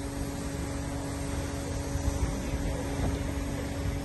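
BMW 318Ci convertible's electro-hydraulic soft top raising, its pump motor giving a steady hum.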